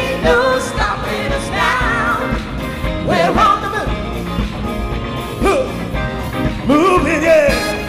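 Soul music with a lead singer's voice over a band backing with a steady beat.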